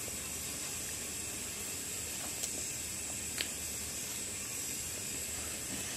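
Steady hiss of background noise, with two faint short clicks about a second apart near the middle, plausibly mouth sounds from eating with the fingers.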